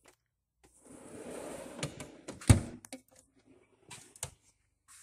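Metal tool chest drawer rolling open on its slides, a rushing rumble for about a second and a half, then one sharp knock as it reaches its stop, followed by a few light clicks of tools shifting.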